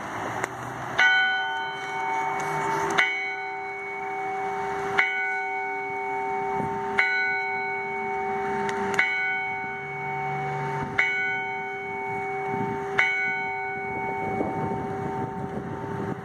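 Church bell cast in 1891 rung with an even stroke about every two seconds, seven strokes in all, each one ringing on into the next. The ring fades away after the last stroke.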